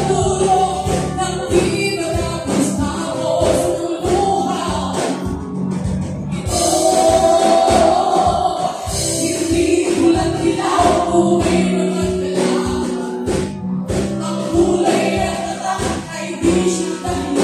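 Live band playing a song through the PA: a woman singing lead over electric guitar and a drum kit with a steady beat.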